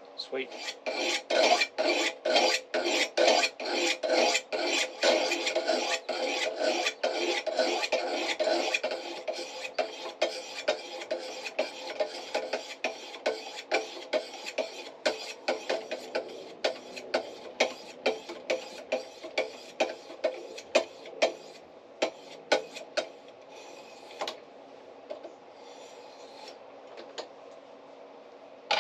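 Sharpening stone on a guided-angle sharpening kit stroked along a clamped carbon-steel knife blade, stone rasping on steel to sharpen the edge. Quick strokes, about two or three a second, for the first nine seconds or so, then slower, spaced single strokes that thin out near the end.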